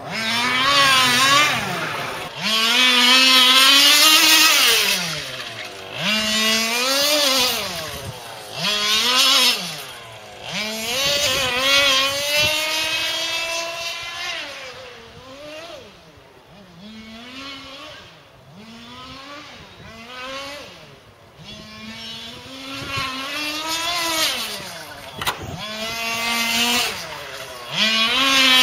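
Tuned two-stroke petrol engine of a 1/5-scale RC car at racing speed. Its pitch climbs on each acceleration and drops sharply as the throttle is lifted for the corners, over and over. It is loud when the car is close and fades through the middle stretch.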